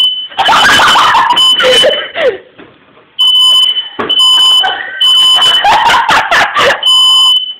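Household smoke alarm going off, set off by smoke from eggs burning in a frying pan. It sounds a loud, high-pitched electronic beep over and over, each beep about half a second long. Voices shriek and shout over it.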